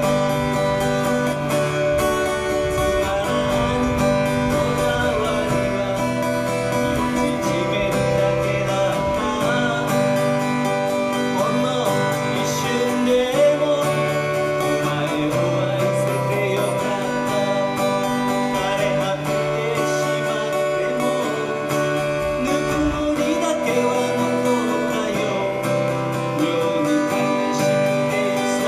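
Live guitar-led music with singing, played at a steady level: a live cover of a Japanese folk-rock song.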